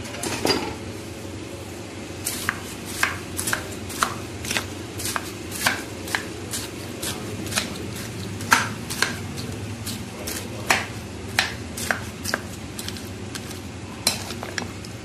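A metal spoon clinking and scraping against a glass bowl while crisp fried pieces and yogurt are stirred together, in sharp irregular clicks about two or three a second, over a steady low hum.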